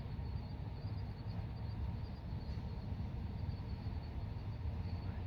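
Night ambience: a steady low rumble, with faint, rapid, high-pitched chirping pulsing evenly over it.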